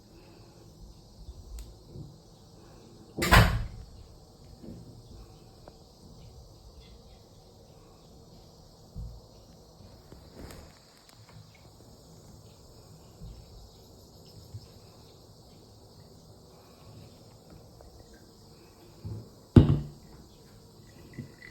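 Insects chirring steadily, with two sharp knocks of something hard, one about three seconds in and a louder one near the end, and a few faint taps between.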